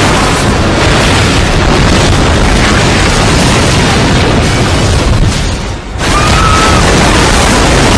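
Loud, continuous rumbling noise, heaviest in the low end. It drops away briefly about five and a half seconds in, then comes back at full strength.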